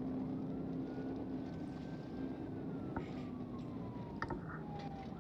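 Police siren wailing in one slow rise and fall over the steady drone of the pursuing patrol car's engine and road noise, with a couple of sharp clicks past the middle.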